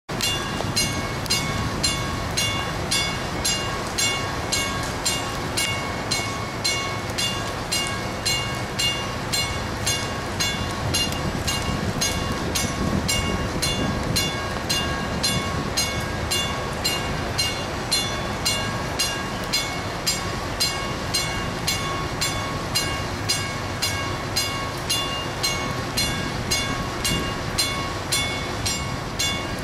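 A warning bell striking in a steady rhythm, about three strokes every two seconds, each stroke ringing on into the next, over a constant low rumble.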